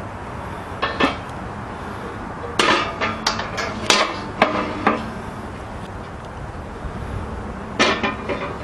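Metal clinks and knocks as a poker jabs at burning wood on the iron grate of a fire pit, with a busy cluster of strikes in the middle, then a metal coffee pot clanks down onto the grate near the end.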